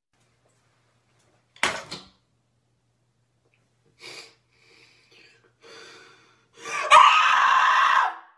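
A person's voice: a short sharp burst about two seconds in, a few faint breathy sounds, then a loud vocal outburst lasting about a second and a half near the end.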